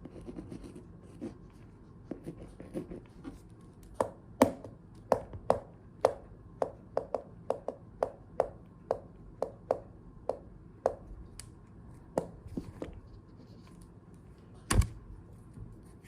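Fingertips tapping a hard surface as ASMR: after a few seconds of soft rustling and scratching, a run of single sharp taps about two a second, thinning out, then one heavier thump near the end.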